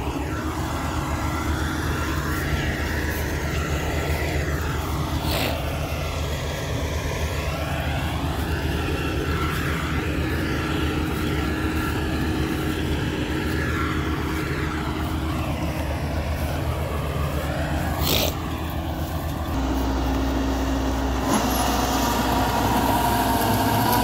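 Crawler rice combine harvester engine running steadily, with a slow wavering, phasing quality. Two brief clicks stand out. About 20 seconds in the sound gets deeper and a steady machine whine joins it.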